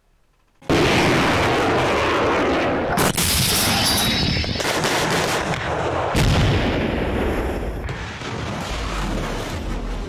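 Artillery guns and rocket launchers firing: a blast under a second in, then four more about one and a half to two seconds apart, with loud rushing launch noise running on between them.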